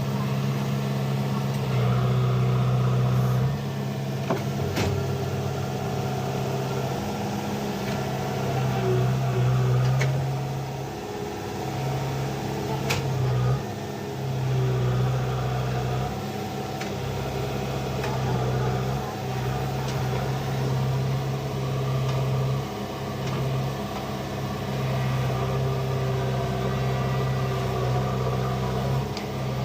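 JCB 3DX backhoe loader's diesel engine running steadily, its note shifting in level and pitch every few seconds as the hydraulics take load while digging. Two sharp metallic knocks come through, about five and thirteen seconds in.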